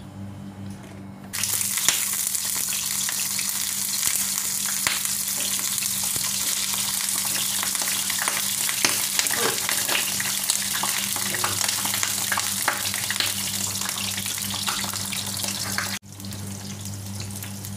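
Halved eggplants frying in hot oil in a nonstick pan: a steady loud sizzle full of scattered crackles and pops, starting suddenly about a second in. A low steady hum sits underneath, and near the end the sizzle drops abruptly and carries on quieter.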